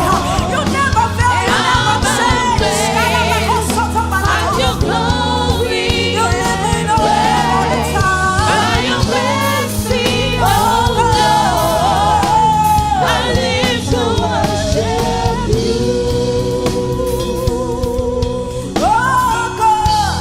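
Gospel worship music: a lead singer with choir voices over sustained keyboard and bass accompaniment.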